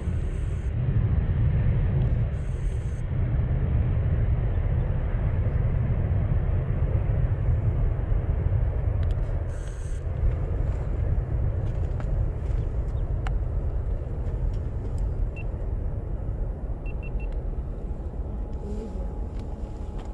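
Twin-engine jet airliner's engines at takeoff power during the takeoff roll: a deep, steady rumble that fades slightly near the end.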